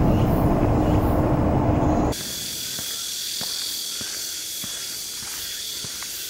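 Low rumble of a moving vehicle with a steady hum, cutting off abruptly about two seconds in. Then a steady high-pitched buzzing of insects in woodland, with faint scattered footsteps on a dirt path.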